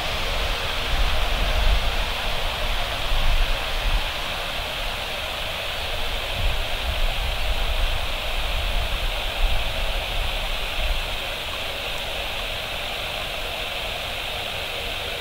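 ATR 72-500's twin turboprop engines running at high power for takeoff, a steady roar of propeller and engine noise, with wind gusting on the microphone.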